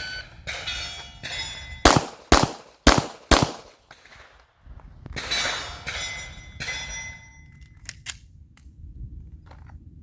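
Four handgun shots fired in quick succession, about half a second apart, starting about two seconds in: two rounds on each of two targets in a timed qualification string. Lighter metallic clatter follows a couple of seconds later.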